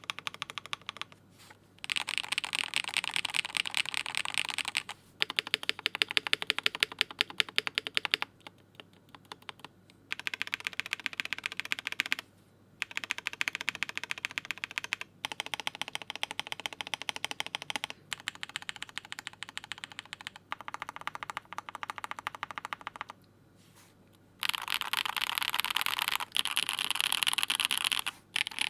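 KBD67 Lite R2 custom mechanical keyboard with Durock POM switches and GMK keycaps being typed on fast, in runs of several seconds separated by short pauses. It has a clacky sound.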